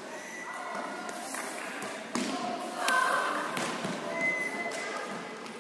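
Echoing sports-hall sound: scattered voices and calls, with a few sharp thuds of volleyballs being hit or bounced, the clearest about two to three and a half seconds in.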